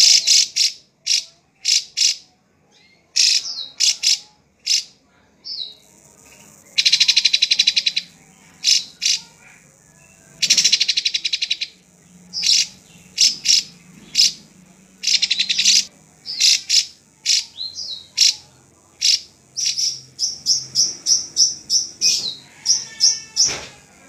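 Caged drongo (srigunting) singing: a varied string of sharp, short whistled notes broken by rasping, rattling trills about a second long, with a quick run of repeated notes near the end.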